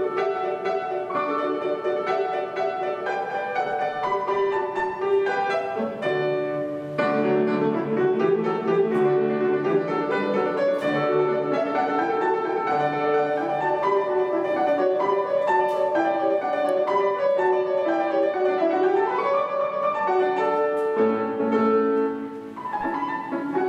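Solo acoustic piano playing a classical piece, a steady flow of fast notes in several voices, with a short drop in loudness near the end before the playing picks up again.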